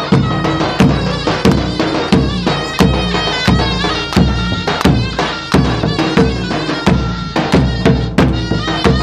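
Loud davul and zurna music: the double-reed zurna plays a melody with wavering ornaments over regular davul drum strokes, a strong stroke about every two-thirds of a second with lighter strokes between.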